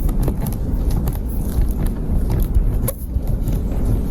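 A car on the move: a steady low rumble of road and running noise, with a few brief faint clicks or creaks.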